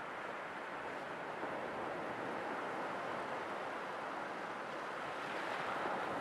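Sea waves washing on a shore: a steady rushing hiss that swells slightly near the end.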